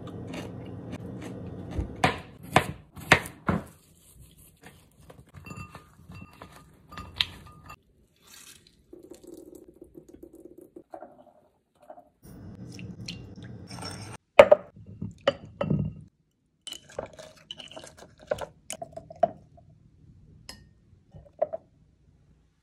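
Kitchen prep sounds in several short cut-together stretches: clinks and knocks of a glass mason jar and dishes, liquid dripping and pouring, and chopsticks clicking against the glass while sliced cucumbers are stirred in the jar.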